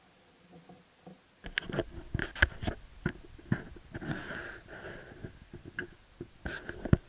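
Handling noise: after a near-silent start, a run of uneven clicks and knocks from about a second and a half in, as an espresso glass is taken hold of and lifted off the machine's metal drip tray.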